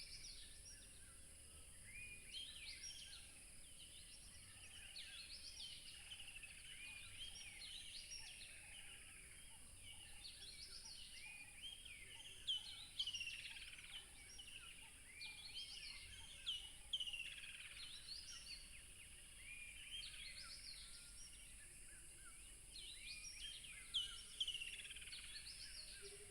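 Several small birds chirping and singing over one another in quick, short notes, with a few louder calls standing out now and then, over a steady faint high hiss.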